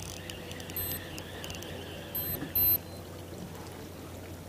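Baitcasting reel being wound in to bring a hooked webfoot octopus up to the boat, over a steady low hum. A few short, high-pitched electronic beeps come about one and two and a half seconds in, the last the loudest.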